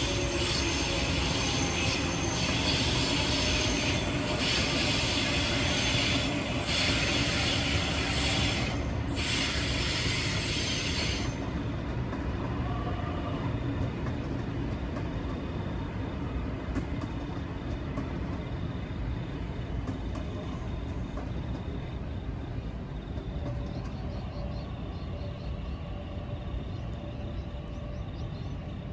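Sydney Trains Waratah B-set double-deck electric train running past, a steady rush of wheel and motor noise that drops suddenly to a quieter low rumble about eleven seconds in.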